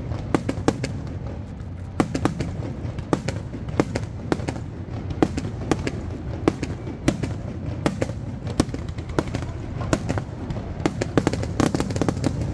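Aerial firework shells bursting in quick succession: sharp bangs several times a second at uneven intervals, over a continuous low rumble of overlapping reports.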